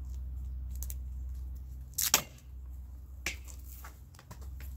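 Duct tape being torn off the roll with a short sharp rip about two seconds in, as a paintbrush is taped onto a broom handle, followed by a lighter knock of handling. A low steady rumble runs underneath.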